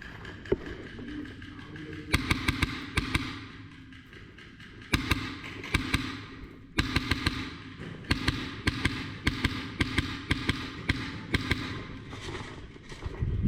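Airsoft guns firing in several short bursts of sharp snapping shots, a few per second, with a low steady whir under the bursts.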